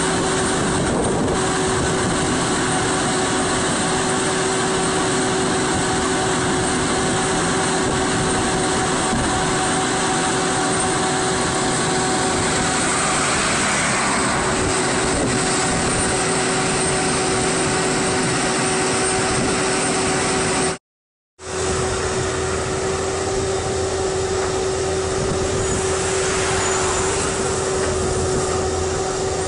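Vermeer horizontal directional drilling rig's diesel engine running steadily, with a constant mid-pitched tone over the engine noise. It cuts out for a moment about two-thirds of the way through, then runs on with a deeper low end.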